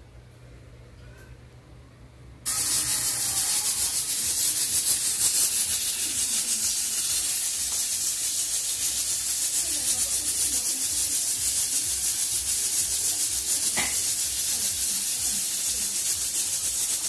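Aluminium pressure cooker hissing out steam, a loud steady hiss that starts suddenly about two and a half seconds in. Before it there is only a faint low hum.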